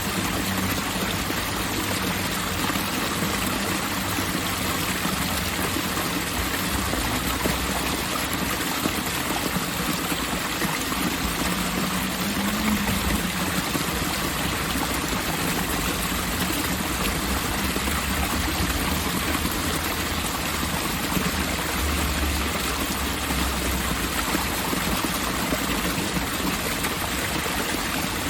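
Water from a park fountain installation running and splashing steadily.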